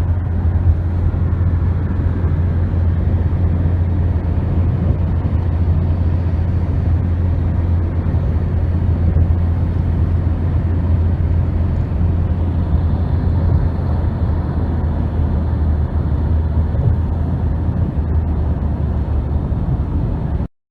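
Steady, loud, low rumble of a vehicle in motion, unchanging throughout.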